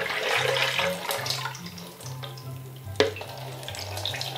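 Milk being poured into a blender jug, a splashing pour that thins out about two seconds in. A single sharp click about three seconds in.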